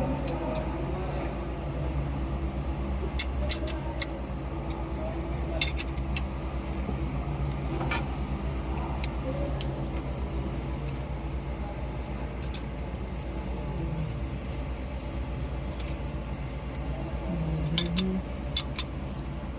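Metal hand tools clicking and clinking on the valve gear while the tappet clearances of a Tata 1613's diesel engine are set: scattered sharp metallic clicks, a few close together, over a steady low hum.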